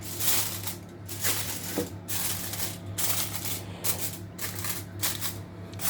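Aluminium foil crinkling in a string of short rustling bursts as it is pressed down over an oven dish.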